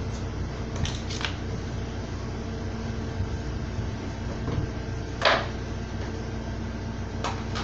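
Plastic fairing panel of a Kymco Super Z 125 scooter being fitted by hand: a few short plastic clicks and knocks, a pair about a second in, the loudest about five seconds in and two more near the end. A steady low hum lies underneath.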